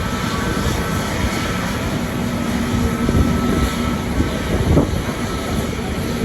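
Airbus A321neo's Pratt & Whitney PW1100G geared turbofan engines running, a steady whine over a rushing noise.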